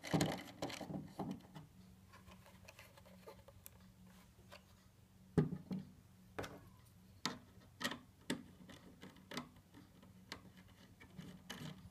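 Scattered clicks and knocks of plastic Wi-Fi antennas and a DrayTek AP800 access point's plastic housing being handled and set down on a wooden table while the antennas are screwed onto their connectors, the loudest knock about halfway through. A faint steady low hum runs underneath.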